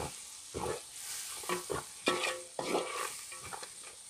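Sliced onions sautéing in hot oil in a metal pan, stirred with a perforated metal spoon: about five scraping strokes with short metallic clinks against the pan over a light sizzle. The onions are being cooked only until they soften, not browned.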